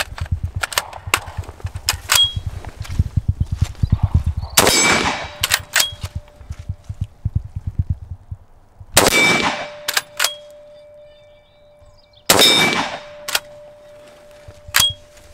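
Three shots from a Schmeisser SP15 straight-pull .223 rifle, about four and then three seconds apart, each with a long echo. Sharp metallic clicks and pings come between the shots, and a steady ring lingers after the second and third. There are low thumps of handling in the first few seconds.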